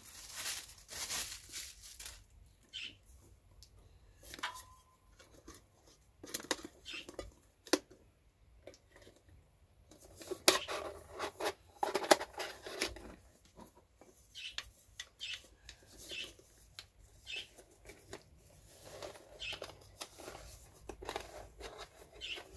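A metal camping cook pot being handled and packed into a mesh stuff sack: scattered rustling of the mesh with light knocks and clicks of the pot, and the drawstring being pulled shut near the end.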